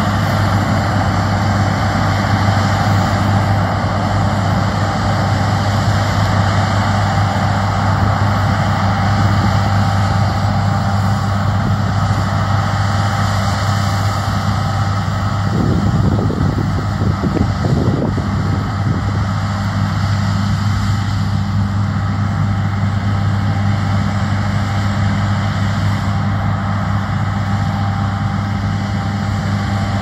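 A heavy engine running steadily: a constant low drone with faint steady whining tones above it, and a brief rumbling noise a little past the middle.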